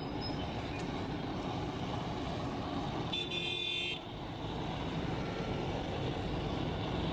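Hand-held LPG blowtorch flame burning steadily as it chars the top of a kulcha omelette, over butter sizzling on the griddle. A vehicle horn toots for under a second about three seconds in.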